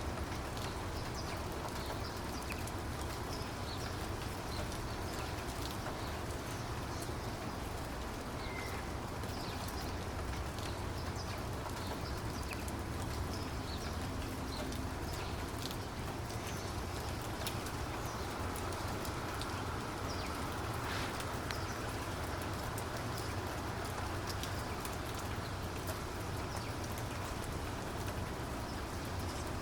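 Steady rain falling, an even hiss dotted with many small drop ticks, and a couple of short high chirps.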